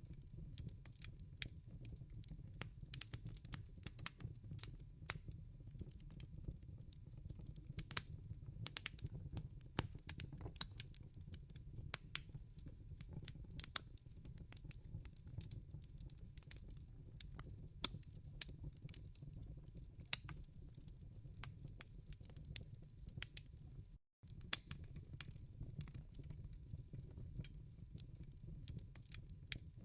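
Wood fire burning in a fireplace: a steady low rumble of flame with frequent sharp, irregular crackles and pops from the burning logs. The sound cuts out for a moment about three-quarters of the way through.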